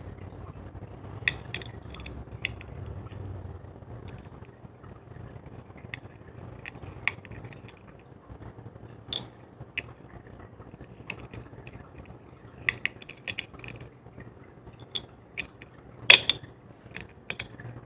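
Small metal lock parts clicking and tapping as a Mul-T-Lock Interactive dimple lock is taken apart by hand: scattered light clicks, with one louder clack near the end.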